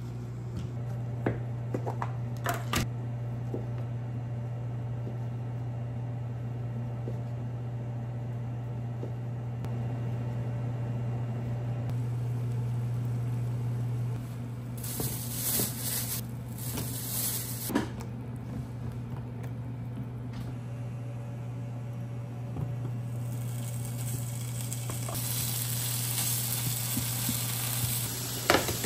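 Cooking sounds: a few light clicks and taps at first while strawberries are handled over a metal mesh colander, then salted water boiling in a frying pan, and from about two-thirds of the way in, bacon strips sizzling in the pan, with a sharp knock near the end. A steady low hum runs underneath.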